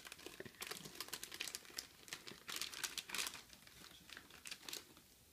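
Plastic snack packet crinkling as it is handled and torn open, a dense run of sharp, irregular crackles that stops shortly before the end.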